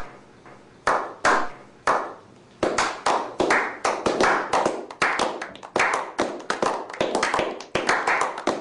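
A slow clap by a small group: single hand claps spaced about a second apart, quickening from about two and a half seconds in into faster clapping of several claps a second.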